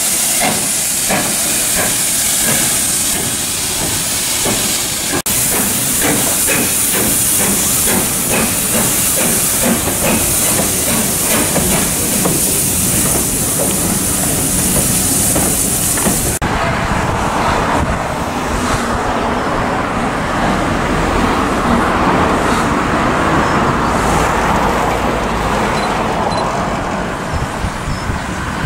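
Steam locomotive passing with its train: a loud steady hiss of steam with a fast rhythmic clatter. About sixteen seconds in the hiss stops abruptly and a duller steady rumble follows.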